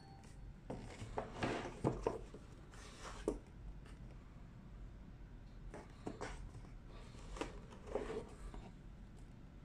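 Cardboard smartphone boxes being handled, rubbing and sliding against fingers and each other in short irregular scrapes, in two bursts of handling.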